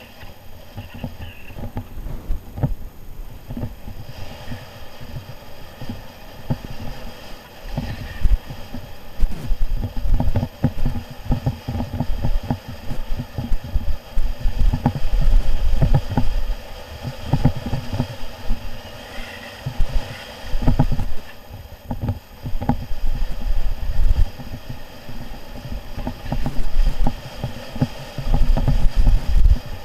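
Wind buffeting the microphone of a camera on a moving motorcycle: irregular low rumbles, louder from about ten seconds in, over the faint steady hum of the engine.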